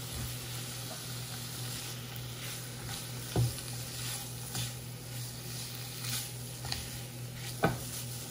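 Chicken, onion, pepper and scallion fajita filling sautéing in a pan with a steady sizzle, stirred, with two knocks, one about three and a half seconds in and one near the end.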